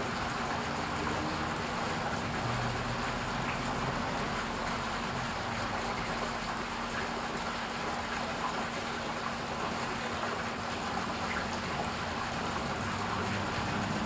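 Garden birdbath fountain running, water trickling and splashing steadily into its basin, with a faint steady low hum underneath.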